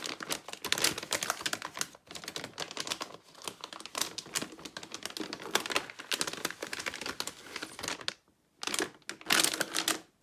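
Crinkling and rustling of the motherboard's packaging as it is handled and unwrapped. The crackling stops briefly near the end, then comes back in two short bursts.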